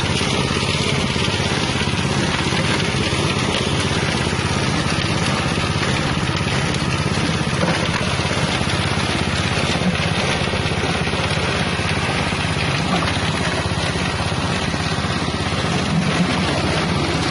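The 6.5 hp engine of a wet spice-grinding machine running steadily at constant speed.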